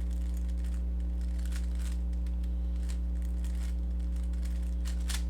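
Faint plastic clicking and scraping of a Rubik's cube's layers being turned through an algorithm, in irregular bursts. A steady electrical hum runs underneath.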